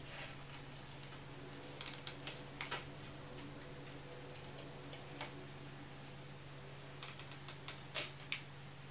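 Faint scattered clicks and taps of hands working a hot glue gun and a small label, in two clusters about two seconds in and again near the end, over a low steady hum.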